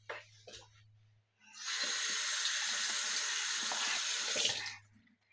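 Bathroom tap running water into the sink basin for about three seconds, starting about one and a half seconds in and shut off near the end, as foaming cleanser is rinsed off the face.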